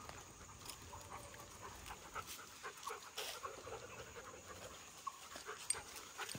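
Faint panting of dogs trotting close by, with scattered light ticks of steps on the paved road.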